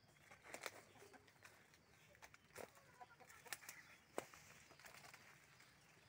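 Near silence outdoors, broken by scattered faint clicks and rustles and a few faint, short bird calls.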